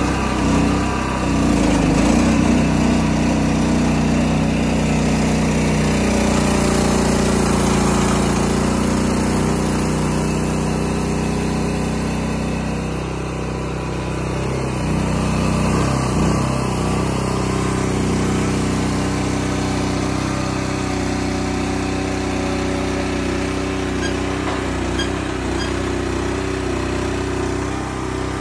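Engine driving a hydraulic log loader, running steadily while the grapple lifts and swings logs, its pitch dipping and recovering briefly a couple of times as the hydraulics take the load.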